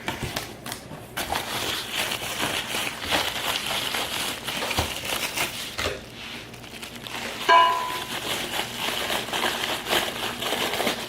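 Plastic packaging and bubble wrap crinkling and rustling as the cold air intake parts are handled and unwrapped, with one short squeak about two-thirds of the way through.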